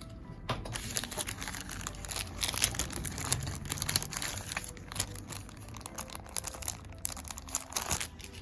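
Dense scraping and tearing with many small clicks, from old cloth being worked off the damper levers of a piano action. It starts about half a second in and dies away near the end.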